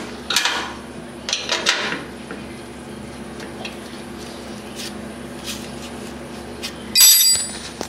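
Steel wrench clinking and knocking on the skid-shoe bolts of a snowblower's auger housing as the shoes are adjusted, with a few sharp clicks early and fainter ticks after. A louder metallic clatter comes about seven seconds in, over a steady low hum.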